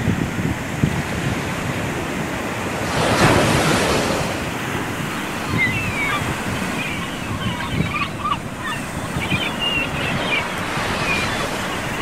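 Ocean surf breaking on a sandy beach, with wind buffeting the microphone; one wave crashes louder about three seconds in.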